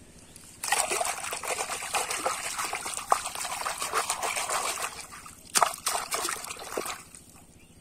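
Water splashing and sloshing as a hand swishes a small plastic toy giraffe back and forth through muddy water to wash the mud off. The splashing starts about a second in, eases off briefly, then comes in one more short burst before it stops.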